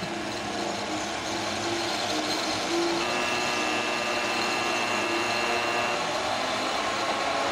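Steady mechanical running noise of a crash-test vehicle on its run-up track toward the barrier, with a faint high whine between about three and six seconds in.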